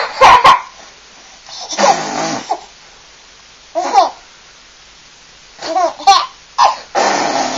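Baby laughing and babbling in several short bursts with quiet pauses between, mixed with raspberries blown with the lips, a sputtering noise just after the start and around two seconds in.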